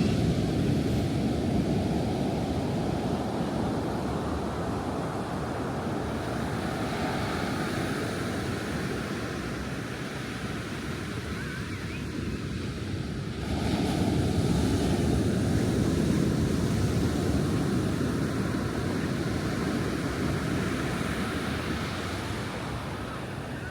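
Ocean surf washing onto a beach in a steady rush, with a fresh wave breaking about halfway through that makes it louder for several seconds before it eases off again.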